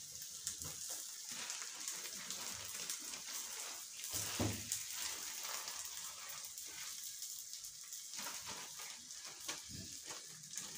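Food frying in hot oil in a pan: a steady sizzling hiss, with a few faint clicks and knocks.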